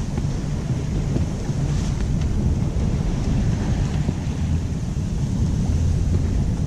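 Wind buffeting the microphone on a sailboat sailing close-hauled into the trade wind, with the rush of waves and water along the hull. A steady low rumble of wind with a hiss above it.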